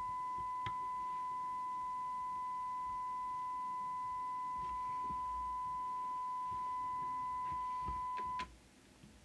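Steady 1 kHz test tone from a signal generator, reproduced by the Midland 48 Plus Multi CB radio on receive, with a fainter overtone an octave up; it cuts off suddenly about eight seconds in. A few faint clicks sound over it.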